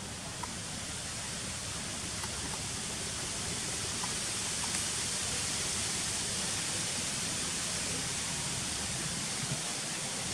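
Steady outdoor background hiss, strongest in the high range, swelling slightly over the first few seconds, with a few faint ticks.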